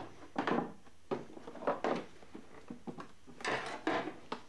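Plastic heater blower housing of an Opel Kadett D being prised off the bulkhead with a lever, breaking free of its seal: a handful of short, irregular creaks, scrapes and knocks.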